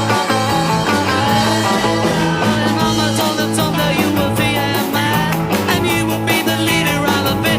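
Rock and roll instrumental break: electric guitar lead over a stepping bass line and a steady drum beat.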